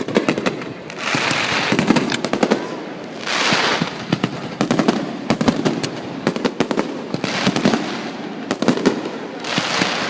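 Fireworks crackling: dense clusters of rapid sharp pops, broken by bursts of hissing about a second in, around three seconds in, and near the end.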